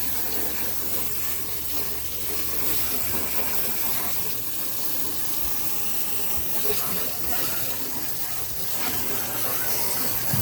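Water spraying steadily and splashing as a dog pen is rinsed down.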